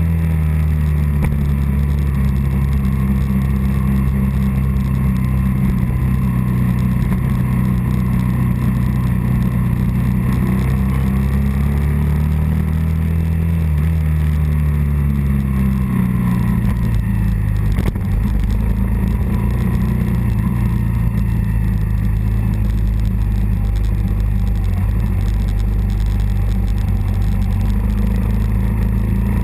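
Early-1980s Suzuki 125 motorcycle engine running under way, recorded from the bike itself. Its note rises and falls with the throttle, dropping noticeably about sixteen seconds in.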